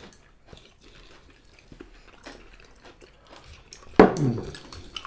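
Eating sounds: chewing, with light clicks of chopsticks against ceramic bowls. About four seconds in comes a short, loud vocal sound from one of the diners, falling in pitch.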